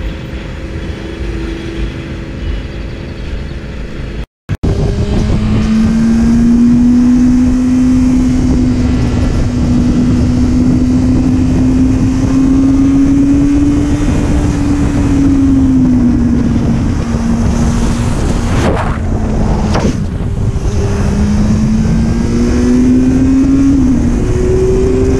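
Motorcycle engine and wind noise heard from the rider's onboard camera. After a brief cut-out about four seconds in, the bike cruises at road speed with a steady engine note. The note eases off twice past the middle, then climbs again near the end.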